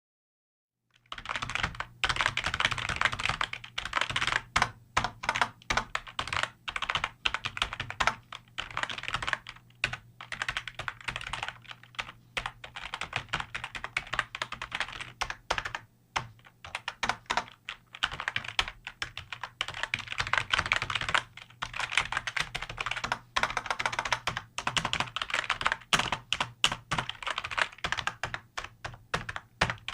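Fast typing on a computer keyboard: runs of key clicks in quick succession, broken by short pauses. It starts about a second in.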